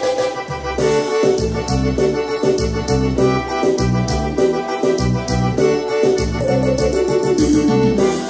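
Korg Pa700 arranger keyboard playing an instrumental piseiro passage: a keyboard melody over a bass line and a steady drum beat.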